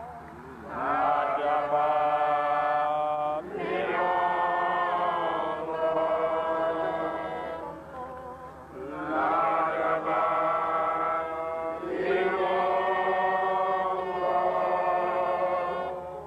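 A group of voices chanting together in long, held phrases of a few seconds each, with brief pauses between phrases.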